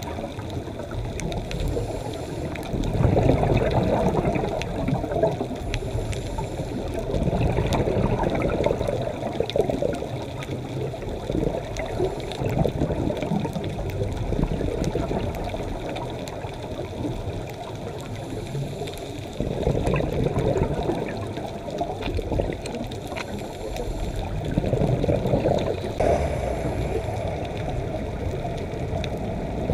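Underwater ambience of a scuba dive: a diver's regulator breathing, a short high hiss on each inhale followed by a swell of exhaust bubbles, several times over, with faint ticking crackle beneath.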